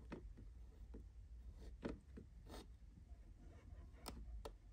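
Tiny knife slicing through a small cucumber onto a thin plastic cutting board: faint, irregular crisp cuts and clicks, about eight or nine in all, the loudest about two seconds in.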